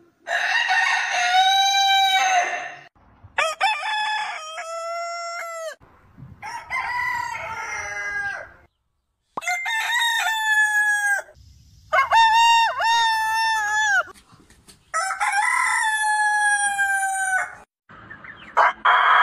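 Roosters crowing in turn, a different bird each time: about six long cock-a-doodle-doo crows one after another, with short silent gaps between them.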